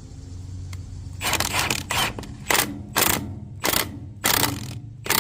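Hand ratchet wrench running a nut down on a wheel fastener bolt: a run of ratchet clicks on each back-swing, repeating about every half second to second, starting about a second in.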